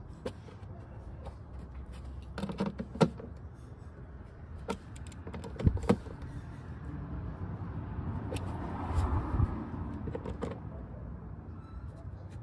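Scattered clicks and light knocks of a Phillips screwdriver being turned by hand on the screws of a plastic splash guard, over a low steady rumble that swells for a couple of seconds about eight seconds in.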